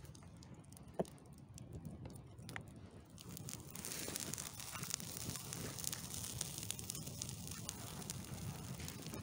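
Flames crackling on a burning cardboard model truck, with a few sharp pops. About four seconds in the crackle grows louder and denser.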